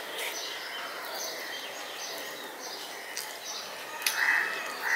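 Birds chirping faintly in the background, with a few light clicks from fingers mixing rice on a steel plate. A louder short sound comes about four seconds in, as a handful of rice goes to the mouth.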